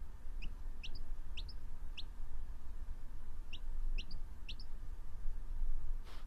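A yellow domestic chicken chick peeping: short, quickly rising chirps in two runs, four in the first two seconds, then three more a second and a half later.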